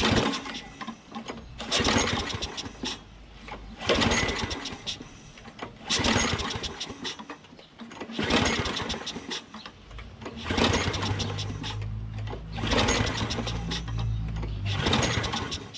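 Briggs & Stratton Quantum lawn mower engine being pull-started again and again, about eight pulls roughly two seconds apart, each a rattling whir of the recoil starter cranking the engine. It turns over but does not keep running on the fluid squirted into the intake, which is his test for spark while he believes a blocked carburetor emulsion tube is starving it of fuel.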